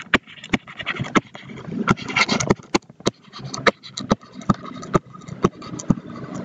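A stylus clicking and scratching on a tablet's writing surface as words are handwritten: a run of sharp taps, about three a second, with faint scraping between them.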